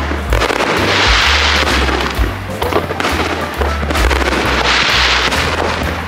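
Aerial fireworks bursting and crackling, a fresh crackle every second or two, under background music.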